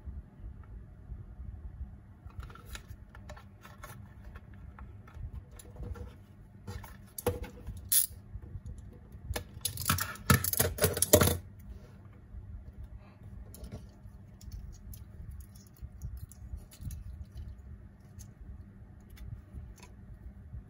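Small hard plastic clicks and taps from a clear plastic tape dispenser being handled, over a low steady room hum. There are sharper knocks about seven and eight seconds in, and a dense burst of rapid clicking lasting about two seconds, about ten seconds in.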